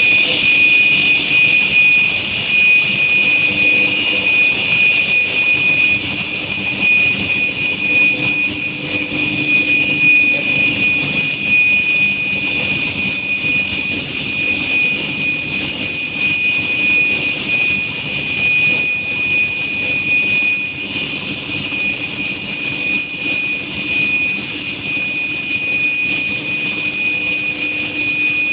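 Induction preheating furnace running, a steady high-pitched tone over a rushing noise with a fainter low hum beneath.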